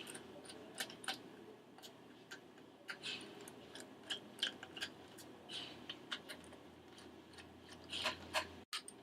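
Faint, irregular light clicks and taps, with a few short scrapes, from small laptop parts being handled on a motherboard and heatsink.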